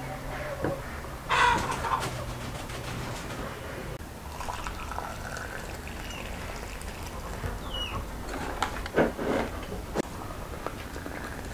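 A brass samovar tap running a thin stream into tea glasses, under birds calling. Short chirps glide down in pitch; louder calls come about a second in and again near the nine-second mark.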